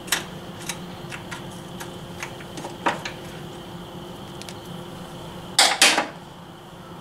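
Small clicks and knocks of hand tools and a plastic automotive fuse box being fitted onto its mount, with two short, louder rattling bursts about five and a half seconds in, over a steady faint hum.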